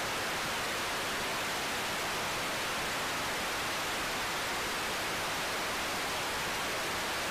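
Steady, even television static hiss, the sound of a snowy, no-signal video screen.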